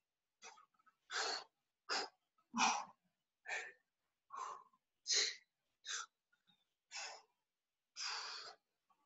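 Heavy, effortful breathing of a person straining through a plank exercise: about ten short breaths, roughly one a second, the last one a little longer.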